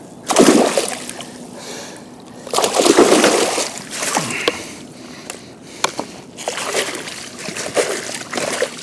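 Water splashing and sloshing in irregular bursts, loudest about half a second in and around three seconds in, as a strong hooked asp thrashes close by during the fight.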